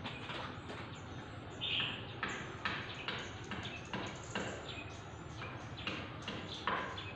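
Irregular short scrapes and taps of hands working at something on a tiled floor, with short high chirps, taken for birds, in the background.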